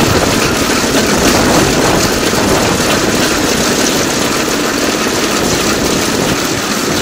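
DL2 motor draisine running along the rails, its engine and wheels making a loud, steady rattling drone with a fast, even pulse.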